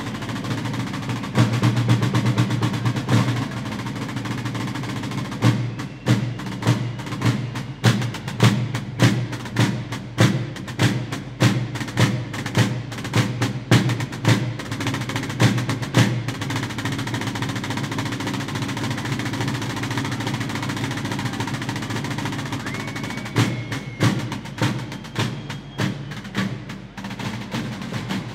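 Moratalla Holy Week drums, tall natural-skin tambores and a bass drum (bombo), playing together: a continuous drum roll with fast, sharp accented strokes over it. Past the middle the accents drop away for several seconds, leaving the roll, then return near the end.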